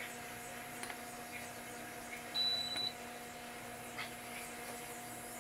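A single high electronic beep lasting about half a second, partway through, over a steady low electrical hum. Faint light taps come from jalapeño slices being set on chicken on a foil-lined sheet pan.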